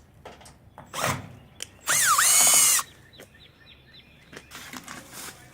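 Cordless drill backing screws out of the tool chest's top section: a short spin about a second in, then a longer run, the loudest, whose pitch dips and rises again.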